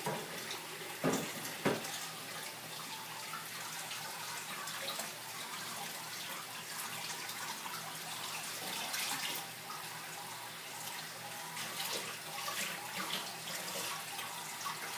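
Kitchen tap running steadily into a sink, with a couple of sharp knocks about a second in.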